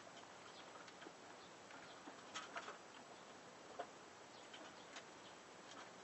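Faint scattered clicks and scratching from a lovebird shifting in the wood shavings of its nest box over its chicks, with a short cluster of slightly louder ticks a little over two seconds in.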